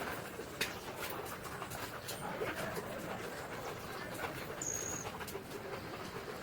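Faint animal sounds, soft cooing, over a low background, with a few light clicks and one brief high whistle-like tone a little before the end.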